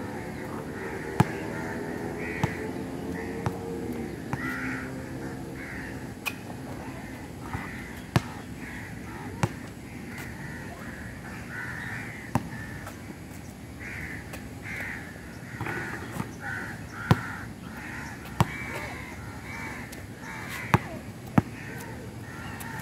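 Crows cawing repeatedly, with a basketball thudding on the concrete court about a dozen times at irregular intervals; the ball's impacts are the loudest sounds.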